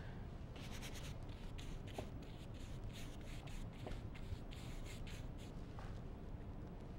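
Faint, quick scratchy strokes of an oil-paint brush on canvas, a run of short brushes with small gaps that thins out near the end.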